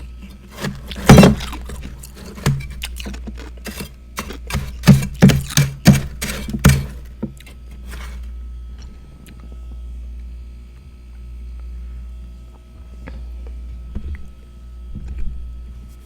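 Freezer frost being bitten and chewed close to the microphone: a quick run of sharp, crunchy cracks for about seven seconds, the loudest about a second in. Then it goes quieter, with a low steady hum and a few faint clicks.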